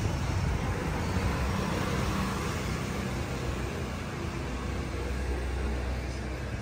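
Steady outdoor street ambience: a low, fluctuating rumble with a hiss over it, with no speech or music.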